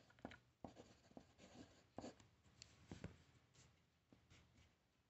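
Faint scratching of a pencil writing on paper, a series of short strokes that thin out near the end.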